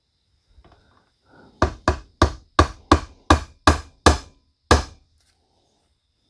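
A hammer striking a steel socket used as a driver, tapping a new U-joint bearing cap down into a driveshaft yoke: a few faint clinks as the socket is set, then about nine sharp metallic taps at about three a second.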